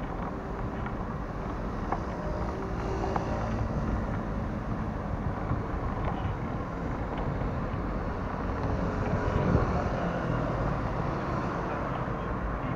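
Street traffic on a busy city road: passing cars' engines and tyre noise in a steady mix, swelling a little about three-quarters of the way through.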